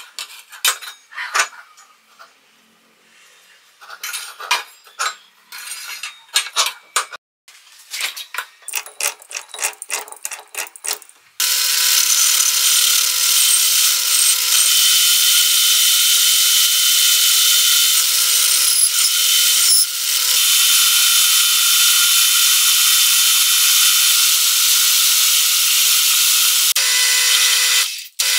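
Metal lathe turning a steel shaft while the cutting tool takes a cut: a steady whirring whine that starts about eleven seconds in and stops just before the end. Before it, scattered light metallic clicks and taps as a steel cutting blade is handled against the brush cutter's gearbox.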